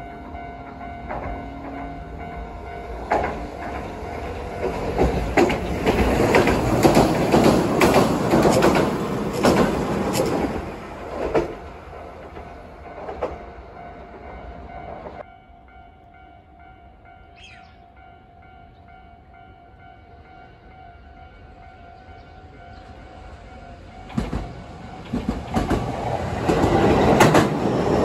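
A train running past, its wheels clacking over rail joints, fading out about halfway through; a steady ringing tone carries on beneath it, and a second train approaches and grows loud near the end.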